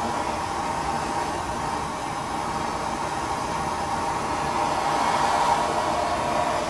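Blowtorch flame running steadily with an even, rushing hiss.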